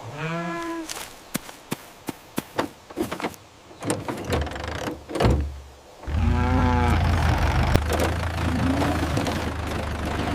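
Cartoon sound effects: a short gliding squeal, then a run of sharp clicks and knocks and a heavy thump. After that comes a steady low mechanical rumble with a brief wavering cry over it.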